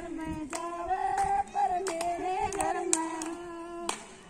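Women singing a song together with sharp hand claps keeping time. The singing fades near the end.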